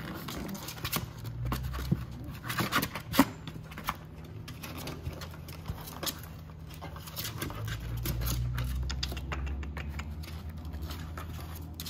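Puppies' paws and claws scrabbling and clicking on a hard plastic kiddie pool and a blanket as mini goldendoodle puppies move about, over a low rumble.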